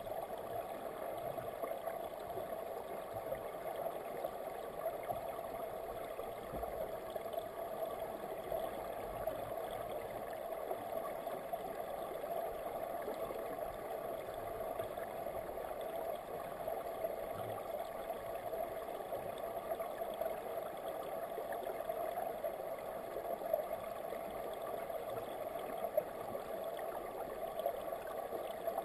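Steady, muffled rushing of a clear river side channel's current, heard from a camera submerged in the stream. A few faint ticks stand out near the end.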